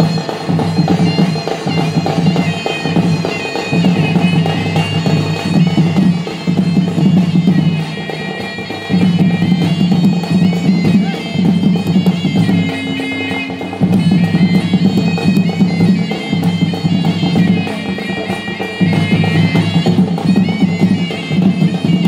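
Sambalpuri folk ensemble music: a nasal double-reed pipe plays a wavering melody over dhol drums and a strong low part that drops out briefly a few times.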